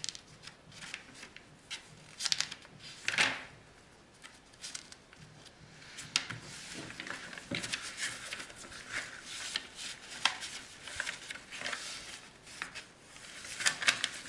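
Paper sketchbook pages rustling and crackling as they are turned and handled: a string of short, crisp paper sounds, with a few louder ones a few seconds in and again near the end.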